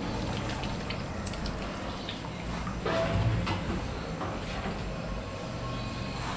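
Metal ladles clinking and scraping in a large aluminium pot of simmering paya broth, over a steady low rumble, with a few short knocks and a slightly louder stretch about three seconds in.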